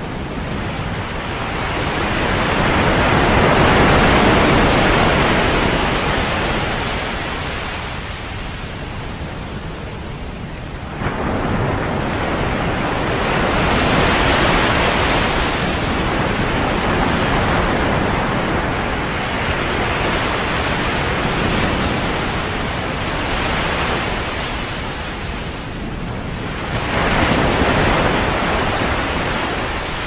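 Sea waves breaking and washing back, the surf swelling and falling away over several seconds at a time, with a sudden surge about eleven seconds in and another near the end.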